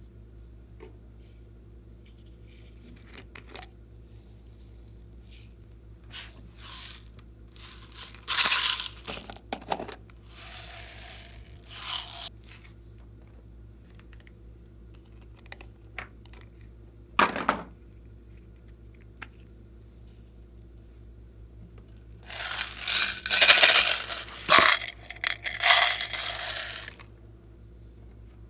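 Hands working slime and the things being mixed into it: scattered bursts of crackly, tearing-like noise over a faint steady hum, with a busy stretch near the end.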